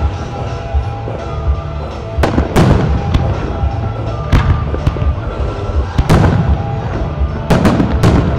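Aerial firework shells bursting with sharp booms, one every second or two, with three in quick succession near the end. Music plays underneath.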